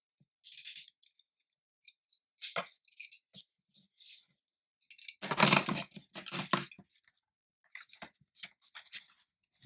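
A blade cutting a slit in a paper card: a string of short scratchy cutting and paper-handling noises, loudest in a longer rasping stretch a little past the middle.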